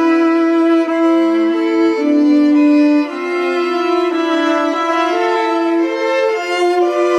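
A chamber quintet playing live: several instruments holding long, overlapping notes, moving to new pitches about every half second to a second, with no percussion.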